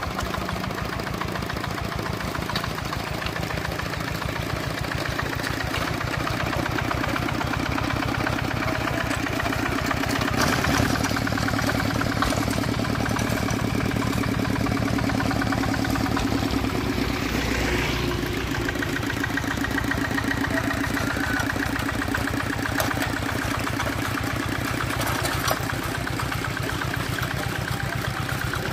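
Single-cylinder Dongfeng diesel engine of a walk-behind hand tractor running steadily at low speed, with a rapid, even firing beat while the tractor is driven along. It grows a little louder about ten seconds in.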